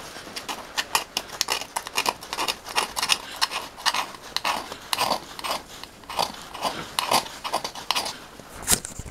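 Old gasket sealant being scraped off a mating surface of an old marine diesel engine by hand: quick, irregular scraping strokes, about two or three a second.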